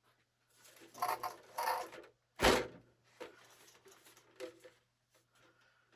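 Handling noises: a couple of rustling scrapes, then one loud thump about two and a half seconds in, followed by a few light clicks.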